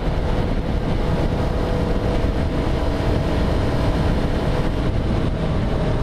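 Yamaha YZF-R3 parallel-twin motorcycle engine running at a steady cruise, its note holding an even pitch under the rush of riding wind on the microphone.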